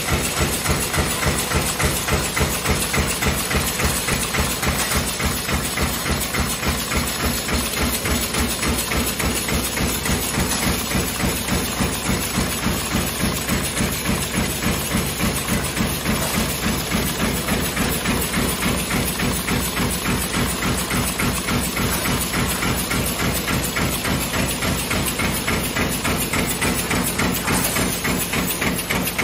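CNC sheet-feed press line stamping 83 mm tin can ends at high speed, a fast, even beat of press strokes over the steady running of the line and its curling machine.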